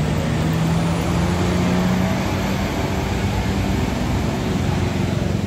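Tour bus engine running close by, a low rumble with a steady hum that rises slightly in pitch over the first two seconds or so and then blends back into the rumble. No horn is heard.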